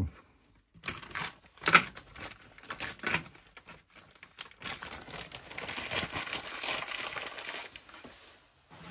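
Clear plastic zip-lock bag crinkling as it is handled, with a few separate clicks at first and a longer stretch of crinkling from about halfway through.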